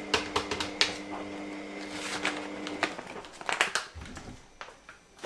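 A plastic spoon and a resealable powder pouch being handled while powder is spooned into a blender jug: a run of light clicks, taps and crinkles, with a low thump about four seconds in. A steady low hum underneath stops about three seconds in.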